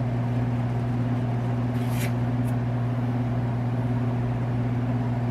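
A steady, low electrical hum, with a short hiss about two seconds in and a fainter one just after.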